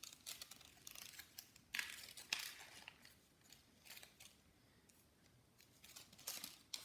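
Printer paper being handled and folded, giving faint crinkles and a few short, sharp rustles, most of them in the first half and again near the end.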